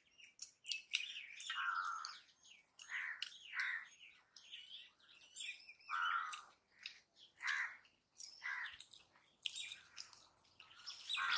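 Birds chirping in short calls, recurring every second or two, with faint clicks in between.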